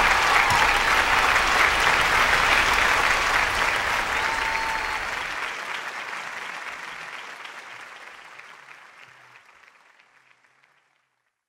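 Audience applauding, the applause fading out steadily to silence near the end.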